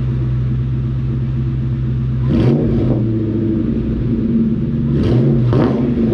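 A cold 1999-2004 Mustang GT's 4.6-litre V8 through a DNA Motoring cat-back exhaust with an off-road H-pipe: steady idle, then two quick revs, about two and a half and five seconds in, each rising and dropping straight back to idle.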